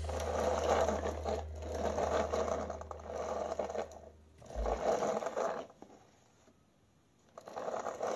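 Plastic toy jeep's wheels rolling and scraping on a hard floor as it is pushed back and forth by hand, in swells roughly once a second, with a short quiet gap near the end. A low steady hum runs underneath until about four and a half seconds in, then stops.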